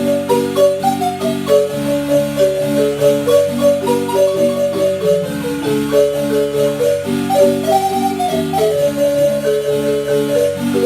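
Marimba music: a melody of quick mallet notes moving up and down over sustained lower chords and a steady bass line.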